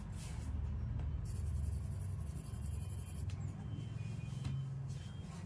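Graphite pencil scratching across drawing paper in shading strokes for the first few seconds, then stopping, over a steady low hum.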